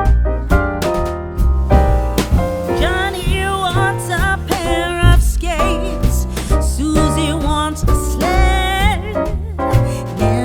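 Background music: a song with piano, bass and a singing voice.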